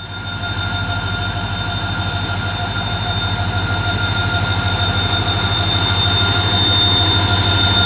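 ALCO WDM3A diesel-electric locomotive's 16-cylinder turbocharged engine running, a steady low throb with a steady high whine, growing gradually louder.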